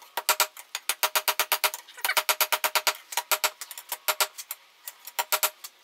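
Hand hammer rapidly striking red-hot leaf-spring steel on a steel-block anvil, about eight blows a second in several runs with short pauses, each blow ringing with a clear metallic tone: forging a knife blade to shape.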